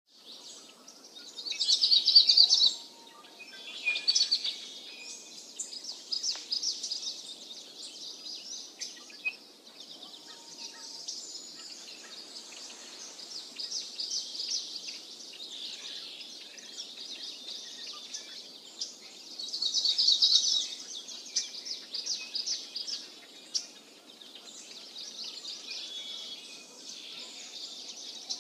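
Songbirds chirping and twittering in quick high calls throughout, with two louder bursts of rapid chatter, one about two seconds in and one around twenty seconds.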